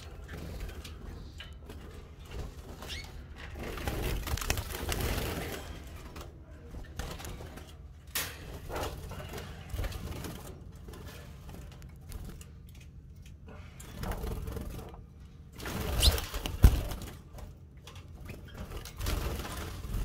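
Young Timbrado canaries moving about a wire flight cage, wings fluttering, with some light calls. There are a couple of sharper, louder thumps about sixteen seconds in.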